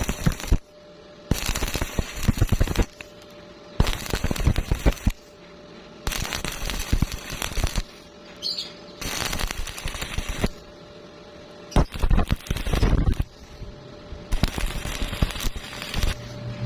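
Stick (arc) welding arc crackling and sputtering in bursts of one to two seconds, broken by short pauses. The arc is struck and broken again and again, about seven times.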